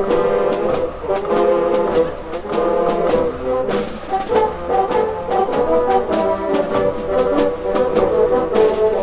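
Ensemble of many bassoons playing a tune together in low harmony, with a drum keeping a steady beat.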